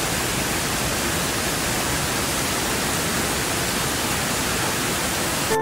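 Heavy rain pouring down, a steady, dense hiss.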